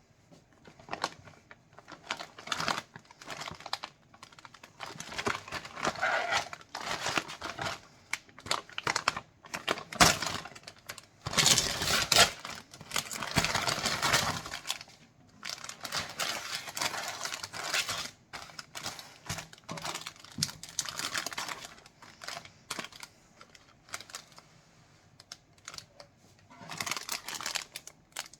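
Plastic ice cream wrapper crinkling and tearing as it is handled and opened, in irregular rustling bursts that are loudest about ten to fifteen seconds in.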